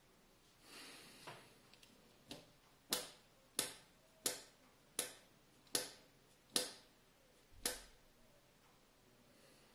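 A pen in a fidgeting hand makes a string of sharp clicks, eight of them about one every two-thirds of a second, each with a brief ring, after a soft rustle about a second in.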